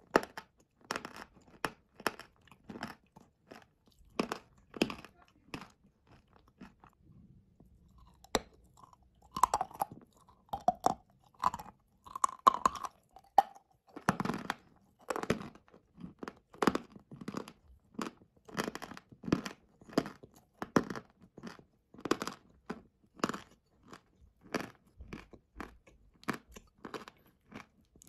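A person chewing a mouthful of wet blue clay paste right at the microphone: sharp, wet mouth clicks and smacks, one or two a second, with a short lull about six seconds in.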